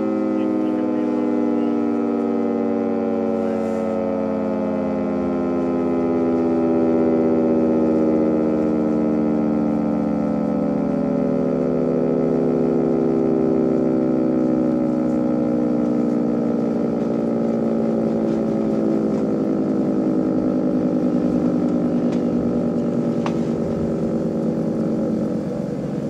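Federal Signal 3T22A three-tone warning siren sounding its chord, the pitch falling slowly and steadily throughout as the rotor winds down.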